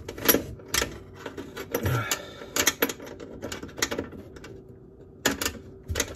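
Irregular metallic clicks and knocks from a sink mounting clip being worked by hand onto its rail under the countertop.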